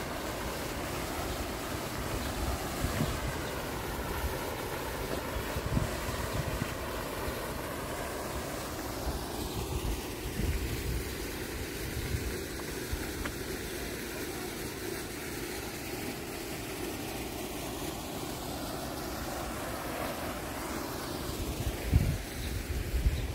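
Fountain jet splashing steadily into a pool, a noisy wash that thins after about nine seconds. Wind buffets the microphone in low gusts, strongest near the end.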